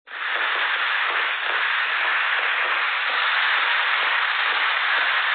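Steady, dense hiss of a ground fireworks fountain spraying sparks, heard through a phone's livestream audio with no high end.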